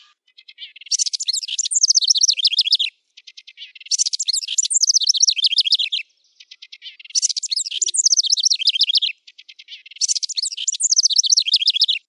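A wren singing the same song four times, about every three seconds: each a faint lead-in followed by a fast run of high, rapid chirping notes lasting about two seconds.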